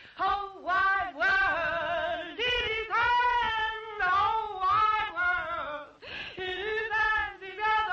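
A high voice singing short phrases of gliding and held notes, some with vibrato.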